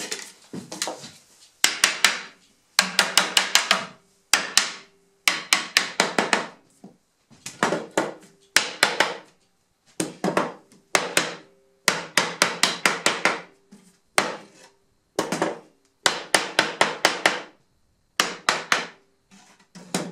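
A hammer tapping the tight-fitting mortise-and-tenon joints of a wooden frame home. It comes in bursts of several quick knocks, one burst every second or so.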